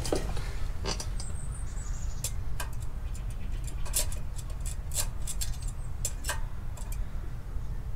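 Irregular light clicks and taps of small tools being handled during clutch gap measurement, over a steady low hum.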